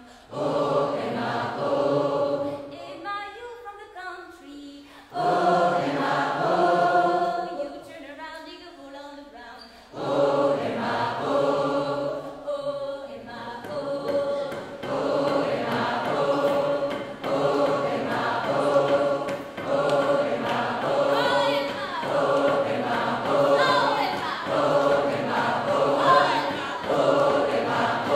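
Large group of men and women singing together a cappella. Twice in the first ten seconds the full group falls back to quieter singing by fewer, higher voices, then comes back in. From about ten seconds in, the whole group sings on steadily.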